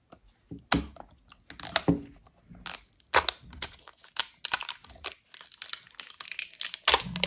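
Sticky green slime and its plastic container being handled by hand: irregular crinkling and crackling clicks that grow denser toward the end.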